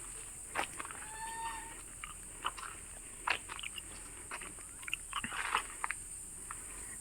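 Quiet outdoor ambience: a steady high-pitched hiss, scattered short chirps and clicks, and a brief animal call about a second in.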